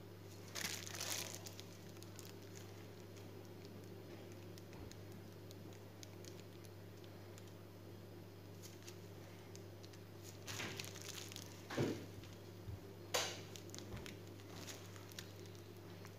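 Faint rustling and crinkling of a plastic piping bag being squeezed by hand, in a few short bursts about a second in and again between about ten and thirteen seconds, over a steady low hum.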